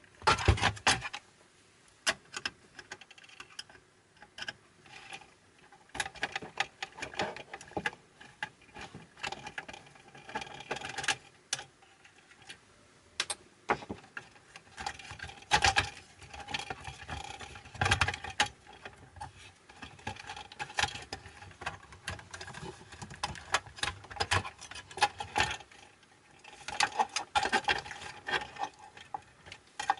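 Irregular clicks, taps and rattles of tools and small metal and plastic parts as a cassette deck is taken apart by hand.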